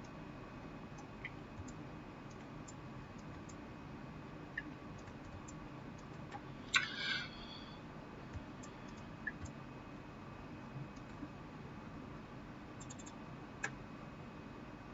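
Faint, scattered computer mouse and keyboard clicks over quiet room noise, with one louder, slightly longer click-like noise about seven seconds in.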